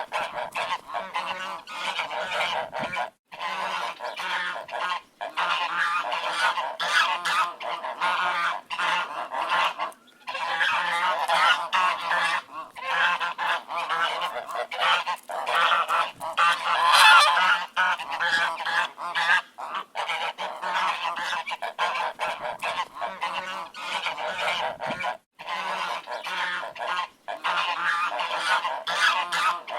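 A flock of ducks quacking, with many calls overlapping almost continuously and a few brief gaps. The calls are loudest about seventeen seconds in.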